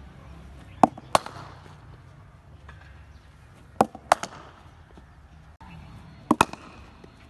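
Cricket ball and bat: three pairs of sharp knocks, a tossed ball pitching and then meeting the bat in front-foot defensive blocks.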